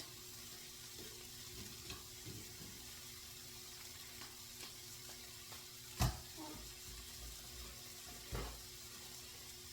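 Carrots and onions sautéing in oil in a pan: a steady, faint sizzle. Two dull knocks break in, about six seconds in and again near the end.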